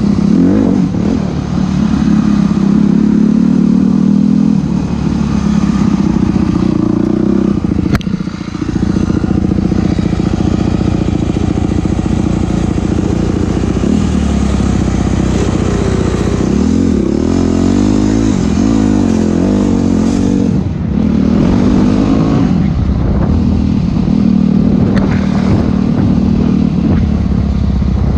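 Enduro dirt bike engine running hard and revving up and down as it rides a trail, with clattering from the bike over rough ground and a sharp click about eight seconds in.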